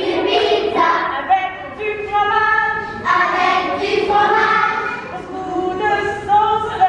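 A group of young children singing a song together, with notes held for a fraction of a second to about a second at a time.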